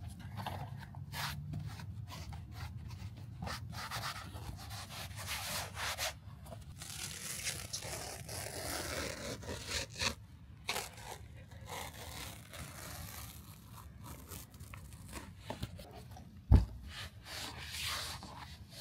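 Hands working a car seat's upholstery and foam: irregular rubbing and scraping of material with small clicks. One sharp low thump comes near the end.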